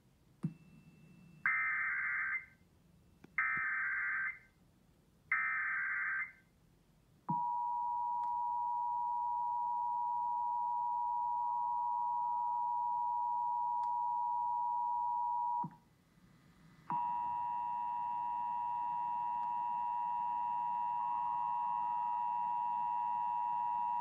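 Emergency Alert System test tones: three one-second bursts of the warbling SAME digital header, then the steady EAS two-tone attention signal held about eight seconds. After a one-second break the attention tone sounds again for about eight seconds, rougher, with extra higher tones.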